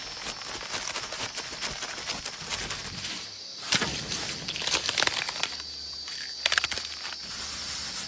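Leaves and branches rustling and crackling in irregular bursts as animals move through foliage, over a steady high-pitched buzz of cicadas.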